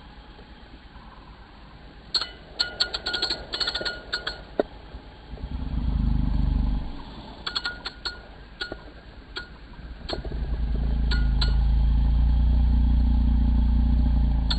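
Irregular sharp metallic clicks from a small spinning reel as a hooked prawn is played on a bent rod. A low motor drone swells briefly around six seconds in, then rises again about ten seconds in and stays as the loudest sound.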